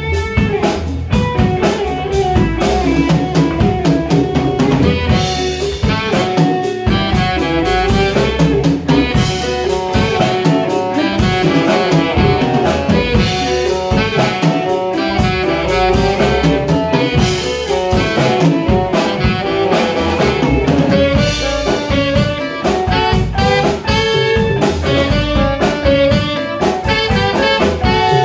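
Live jazz band playing an instrumental: alto and tenor saxophones play the melody together over drum kit, hand percussion, electric bass and electric guitar.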